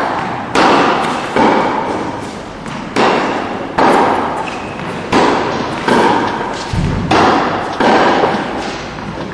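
Tennis ball struck by rackets and bouncing in a steady practice rally on an indoor hard court: eight sharp pops in pairs, the pairs about two seconds apart, each ringing out in the echoing hall.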